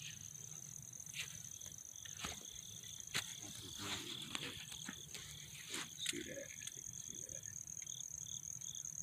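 Outdoor insect chorus: a steady high-pitched trill, joined near the end by a pulsed chirp about twice a second, with a few faint clicks.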